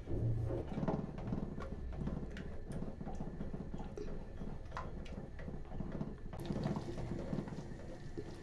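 Thick blended butternut squash soup bubbling in an aluminium pot as a wooden spoon stirs it, with scattered clicks of the spoon against the pot.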